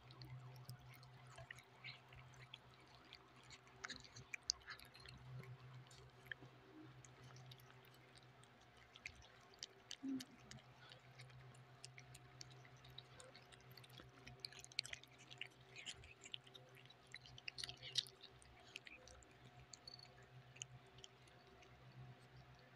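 Cats chewing and mouthing soft cooked chicken and liver close to a microphone: faint wet chewing clicks and smacks, scattered and irregular, over a steady low hum.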